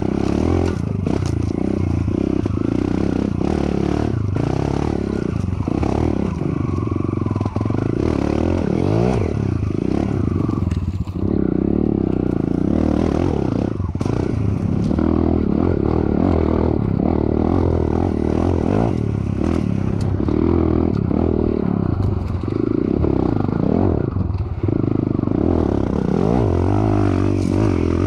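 Enduro dirt bike engine revving up and down repeatedly as it is ridden over a rocky trail, with frequent knocks and clatter from the bike over the rocks.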